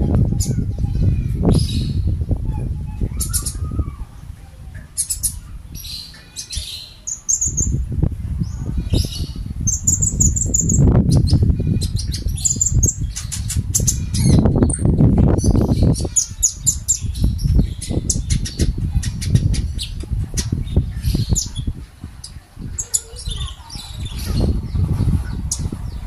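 Caged konin (kolibri ninja sunbird) chirping and twittering in quick, high, short bursts, over a loud, uneven low rumbling noise.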